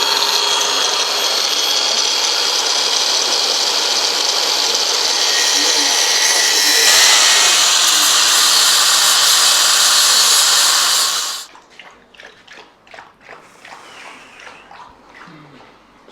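Electric angle grinder running at full speed on steel with a loud, steady whine that grows louder and harsher about seven seconds in, then stops suddenly about eleven seconds in, followed by faint knocks and handling sounds.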